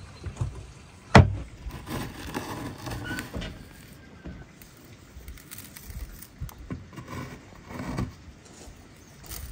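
A sharp knock about a second in, then soft handling sounds as fingers scoop coarse salt from a wooden spice board and sprinkle it over minced meat on a metal tray.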